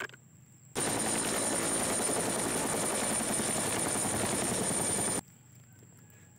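A real helicopter in flight: fast rotor-blade chop over a steady high turbine whine. It starts abruptly a little under a second in and cuts off suddenly about five seconds in.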